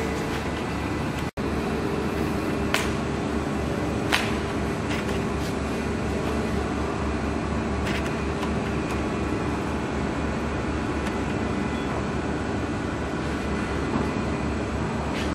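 Roller heat transfer machine running with a steady mechanical hum, a few short sharp clicks standing out about three, four and eight seconds in.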